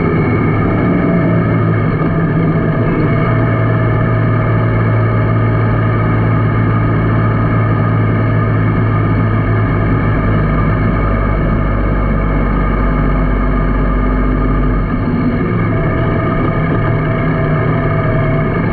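Yamaha Niken's 847 cc inline-three engine running at a steady pace while riding, heard from a handlebar-mounted camera along with wind and road noise. The engine note changes about three-quarters of the way through, when the throttle is eased.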